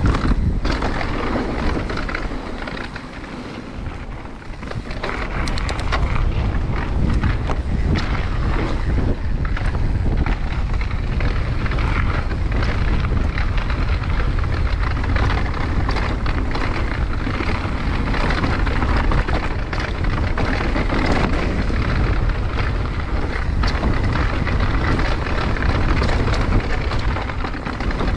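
Downhill mountain bike ridden fast on a dirt trail: heavy wind noise on the microphone over the rumble of tyres on dirt and the clatter of the bike over bumps, easing briefly about three to five seconds in.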